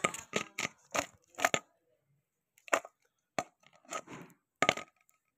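Sliced starfruit and a stainless steel bowl handled by hand: an irregular series of short clicks and knocks, about ten in five seconds, with a brief rustle of the slices shifting about four seconds in.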